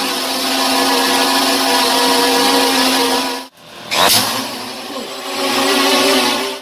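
SJRC F11 Pro quadcopter's motors and propellers spinning with a steady whine and hiss. The sound cuts off sharply about three and a half seconds in, then comes back and swells again.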